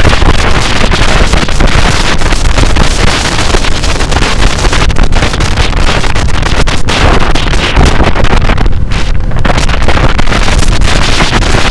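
Loud wind rushing over the microphone of a moving Ducati motorcycle, with the bike's engine and road noise low underneath. The wind noise briefly dies down about nine seconds in.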